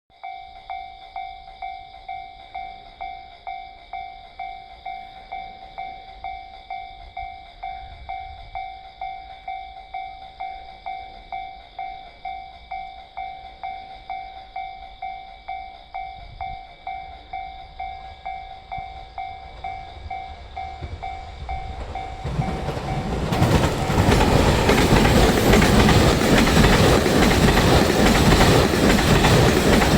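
Japanese level-crossing warning bell ringing steadily, about two rings a second. About 22 seconds in, the M250 series Super Rail Cargo electric freight train arrives and passes, its wheels rolling loudly over the rails and drowning out the bell.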